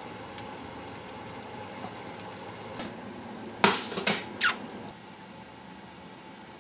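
Low steady hiss of a pot of boiling pasta water, broken about three and a half seconds in by three quick, sharp squeaks, the last one sliding down in pitch.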